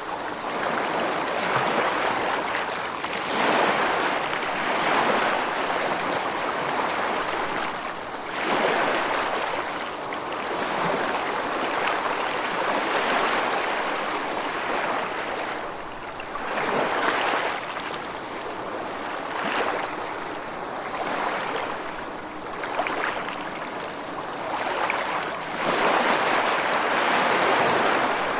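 Rushing water: a steady wash of noise that swells and falls back every few seconds.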